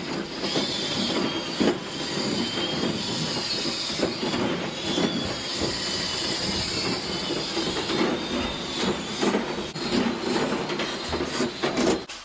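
A drill-driven rotary dryer-vent brush on flexible rods spinning and scraping inside the metal vent duct: a continuous rattling, grinding clatter with a thin squeal, stopping suddenly near the end.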